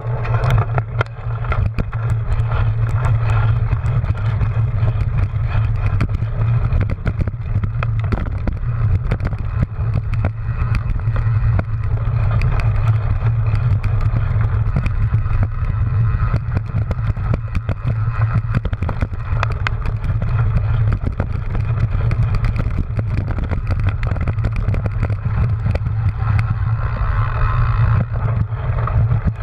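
Wind rushing over the microphone and the rattle of a cyclocross bike ridden fast over bumpy grass, picked up through a camera mounted on its handlebars, with a steady low rumble and many small knocks.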